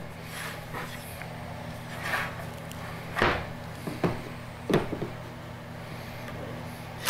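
Short wooden knocks and rubs as a board and a plastic box are handled and set down on a workbench, five or so scattered thumps over a steady low hum.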